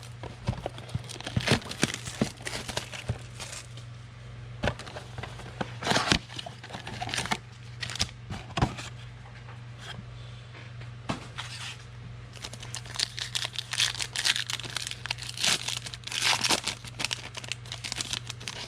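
Wrappers of 2020 Donruss Elite football card packs being torn open and crinkled by hand, in irregular crackles and rips with busier stretches near the middle and end. A steady low hum runs underneath.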